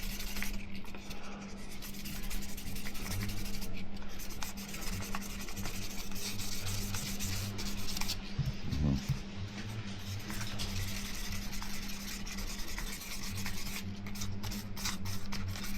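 Sandpaper rubbed by hand over a scratched polycarbonate camera dive case: a continuous scratchy rubbing that swells and fades with the strokes, over a steady low hum.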